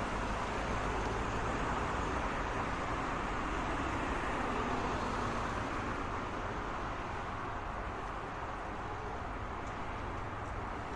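Road traffic: a steady wash of tyre and engine noise from passing cars, easing off slightly in the second half.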